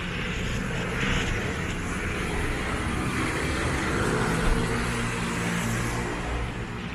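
A motor vehicle's engine droning over a steady hiss of rain and wet road, swelling slightly through the middle and easing near the end.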